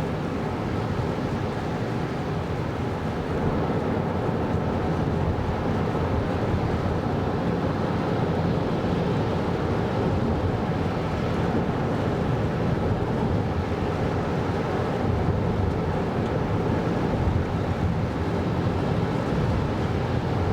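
Steady road noise inside the cabin of a 2024 Kia Carnival Hybrid minivan on the move, with tyre and wind rush on a snowy road; it grows a little louder about three and a half seconds in.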